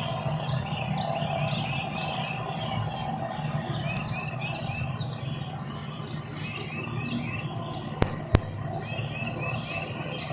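Small birds chirping in quick runs of short repeated notes over a steady low hum, with two sharp clicks close together about eight seconds in.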